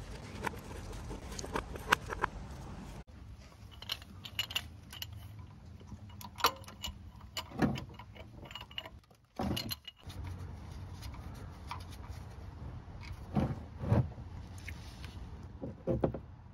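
A few sharp clicks as the plastic oil filler cap is twisted off, then the clicking and metal clatter of a ratchet and 1/2-inch socket loosening an engine oil drain plug, with several dull knocks in the second half.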